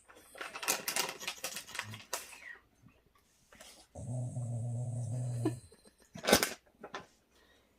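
A Shiba Inu makes a strange, low, drawn-out grumbling sound, held steady for about a second and a half, while begging for ice cream. Before it comes a stretch of rapid crackly noise, and there is a single sharp tap near the end.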